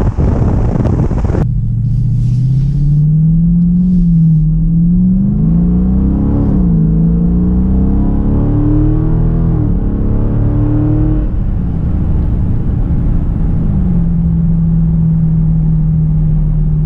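Wind buffeting on the microphone for the first second and a half. Then the 2018 Dodge Charger R/T Scat Pack's 392 HEMI V8 is heard from inside the cabin, accelerating hard: its pitch climbs and drops sharply several times as it shifts up. Near the end it settles into a steady drone at cruising speed.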